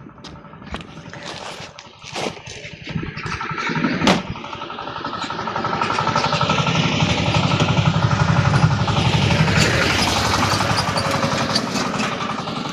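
An engine running, building up in speed and loudness from about four seconds in and then holding steady at a higher pitch. A few sharp knocks come before it.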